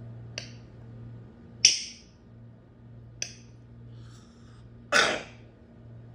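African grey parrot giving short, sharp hissing calls, four of them about a second and a half apart, the last one near five seconds in the loudest and fullest. A steady low electrical hum runs underneath.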